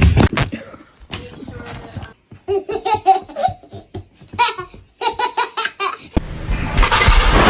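High-pitched laughter in two short runs of rapid pulses. Near the end a loud, steady rushing noise starts.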